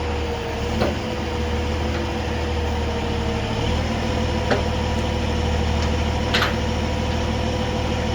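Rotator tow truck's engine running steadily with a constant whine over a low hum. The whine steps up slightly in pitch about three and a half seconds in, and a few short clicks or clanks come through, the sharpest about six seconds in.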